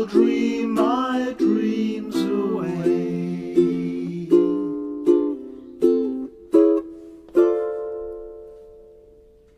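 Ukulele strumming the closing chords of a song: steady strumming gives way to single chord strokes, evenly spaced and slowing, and the last chord rings on and fades away.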